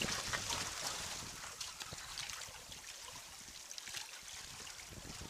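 Small sea waves washing over and draining off rocks at the waterline, a steady wash with little splashes and trickles, louder at first and easing after about a second.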